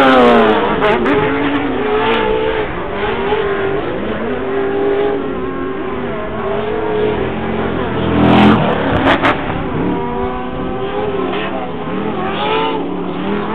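Several off-road race vehicles' engines revving up and down as they race, their pitches rising and falling and overlapping one another. One passage about eight seconds in is louder and fuller.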